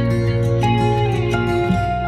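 Instrumental background music: plucked guitar notes over a steady low note. The plucking stops near the end, leaving softer held tones.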